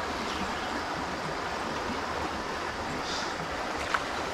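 River current flowing and rippling close by: a steady, even wash of water. One short sharp tick near the end.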